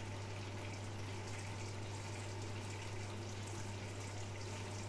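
Pan of food simmering under a glass lid: a steady watery hiss and bubbling, with a steady low hum underneath.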